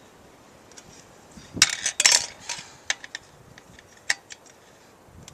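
Metal tyre irons clanking and clicking against a motorcycle wheel rim while levering a tyre bead on: a quick cluster of clanks a little over a second and a half in, then a few single clicks.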